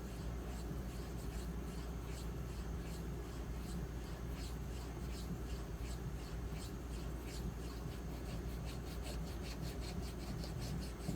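Knife edge stroked over and over on a 4000-grit diamond matrix sharpening stone: faint, short scrapes at about two a second, quickening near the end. The bonded diamond stone is deadened and gives very little audible feedback. A steady low hum lies underneath.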